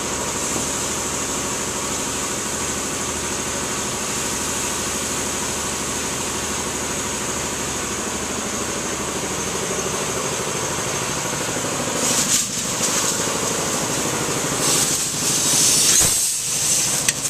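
Engine idling steadily under a constant high hiss. Louder bursts of hissing come about twelve seconds in and again near the end.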